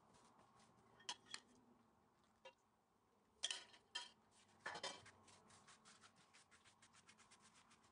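A few faint clinks and knocks as melted butter is poured over stacked yufka pastry sheets, then a silicone pastry brush swishing over the pastry in quick, even strokes from about halfway in.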